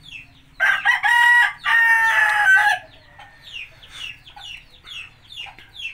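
A rooster crowing once: a loud, pitched crow of about two seconds, broken in two, starting just over half a second in. Behind it, short high falling peeps repeat about three times a second.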